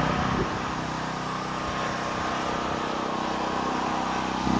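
Generator engine running steadily under load while powering the house during an outage.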